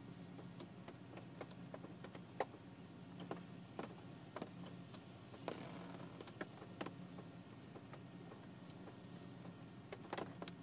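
Rain falling on a car from inside the cabin: scattered, irregular ticks of drops hitting the windshield and body, over a low steady hum.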